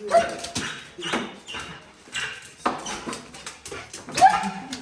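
A small dog whining and crying in several short bursts, the loudest about four seconds in, as it greets a visitor at the front door.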